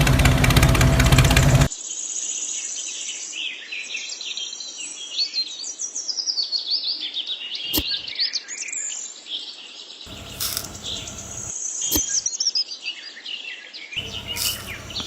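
A loud steady mechanical hum cuts off suddenly a second and a half in. Many small birds then chirp and twitter in quick high calls, with a few sharp clicks and short bursts of noise among them.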